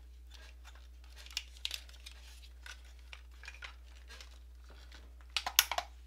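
Plastic parts of a large transforming robot figure clicking and rattling as it is handled and a section is pulled apart. Scattered light clicks, with a louder cluster of sharp clicks near the end.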